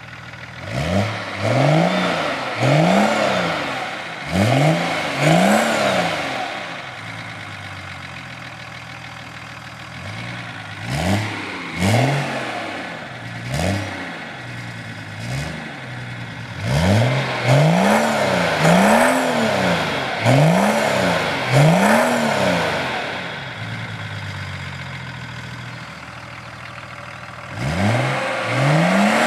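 Straight-piped BMW E34 525tds 2.5-litre turbodiesel straight-six, stationary, revved in quick blips: each rev rises and falls in pitch over about a second, in bursts of two to six, with the engine settling back to a steady idle between bursts.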